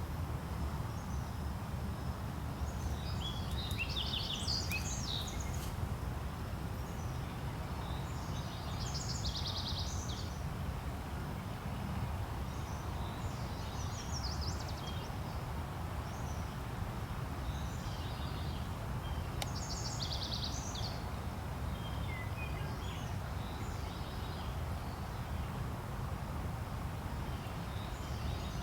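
Songbirds singing short, high, trilled phrases every few seconds over a steady low rumble.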